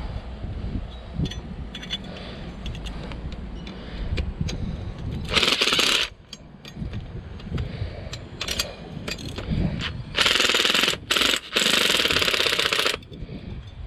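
A hammering power tool runs in two bursts of rapid, even percussion, a short one about five seconds in and a longer one about ten seconds in with a brief stop partway. Light clicks and knocks of handling come in between.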